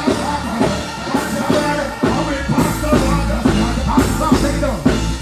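Live reggae band music played loud through a stage sound system, with a steady drum beat.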